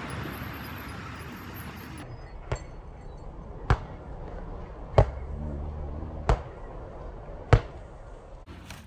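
Basketball dribbled on an asphalt path: five sharp bounces, evenly spaced about a second and a quarter apart.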